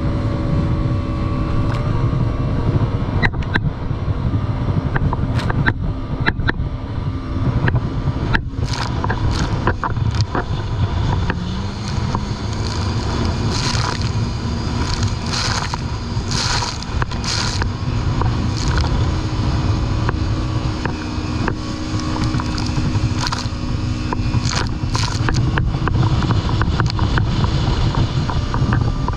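Jet ski engine running under way at speed, its note stepping up in pitch about eleven seconds in, over a heavy rush of wind and water, with many short slaps and splashes of the hull hitting the chop.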